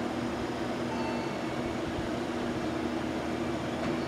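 Nose Electric Railway 5100-series electric train pulling slowly into the platform, its running noise a steady rumble with a low hum.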